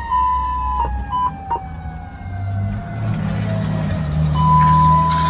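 A fire truck's siren winding down in one long, slowly falling tone over a diesel engine that picks up about two seconds in. Three short steady beeping tones sound in the first second and a half, and a longer one near the end.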